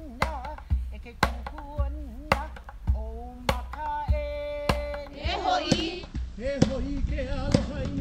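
Hawaiian hula chant: one voice chanting, with a long held note about three seconds in, over a steady beat of ipu gourd drum strikes about twice a second. About five seconds in it cuts to another hula song, with singing and strikes going on.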